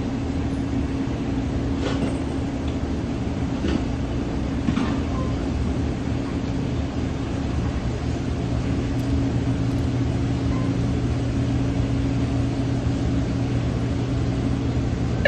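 Steady mechanical hum, a low drone with a higher steady tone over a constant rushing noise, with a few faint clicks or taps.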